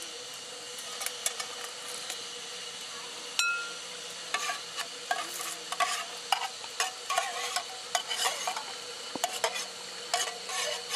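Metal spoon stirring acorn meal into boiling water in a metal canteen cup to make acorn coffee, with repeated scrapes and clinks against the cup's sides. One sharper clink rings briefly a little past three seconds in.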